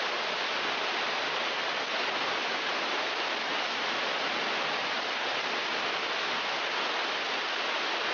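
Glacial meltwater running under the ice: a steady, even rush of water noise.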